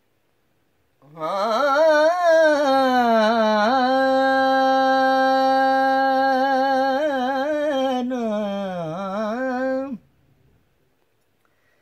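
A man singing unaccompanied in the Multani kafi style: one long wordless vocal phrase, starting about a second in, with wavering ornaments, a steady held note in the middle and a dip in pitch near the end, stopping about ten seconds in.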